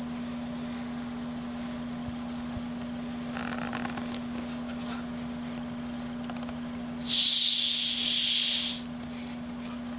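A carbonated soda being opened after some fumbling with the cap: gas hisses out loudly for about a second and a half, then stops. A steady low hum sounds throughout.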